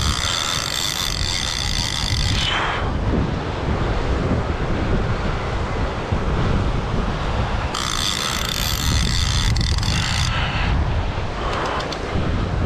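Wind buffeting the microphone over the rumble of surf. Twice a fishing reel gives a high, buzzing whir for two to three seconds, once at the start and again about eight seconds in, as line is worked while fighting a fish.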